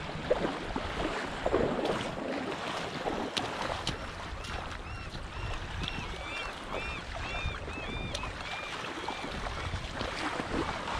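Wind buffeting the microphone over small waves washing on a pebble beach, with a few sharp clicks. In the middle, a bird gives a quick run of short chirps for about four seconds.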